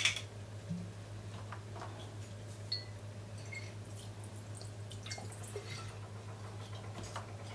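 Cognac poured from a bottle into a glass bowl of barbecue sauce: a faint trickle and drips of liquid, with a few small ticks, over a steady low hum.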